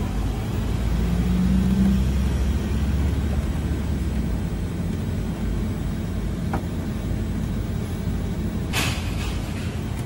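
Low steady rumble with a low hum that swells about a second in and eases off after about four seconds; a small click about six and a half seconds in and a short sharp noise near the end.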